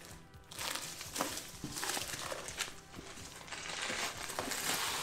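Plastic wrapping crinkling and rustling as it is pulled off a rolled canvas, with small crackles and clicks of handling.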